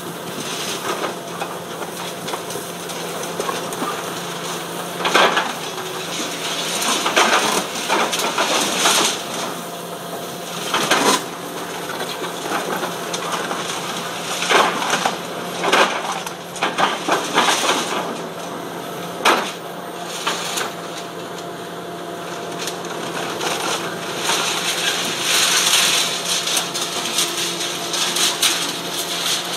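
Hydraulic excavator with a demolition jaw attachment crushing concrete rubble: irregular loud cracks and crunches of breaking concrete over the steady running of its diesel engine.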